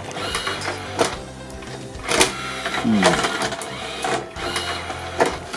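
Sony MDP-M30 LaserDisc player's loading mechanism running under its motor, a mechanical whir with a quick falling whine about three seconds in and several sharp clicks and clunks as the parts move.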